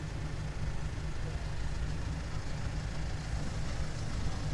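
A large engine idling, a steady low rumble.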